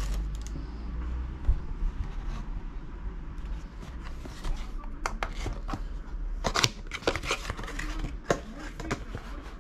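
Cardboard tyre box handled close to the microphone, with a low rumble of handling; about halfway through come a run of sharp clicks, scrapes and crinkly rustles as the box is opened.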